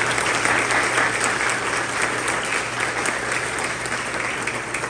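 A congregation applauding: dense, sustained clapping that eases slightly near the end.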